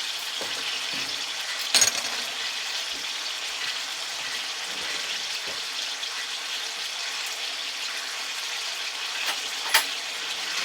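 Chicken breasts sizzling steadily in a cast iron pan, with two sharp knocks, one about two seconds in and one near the end.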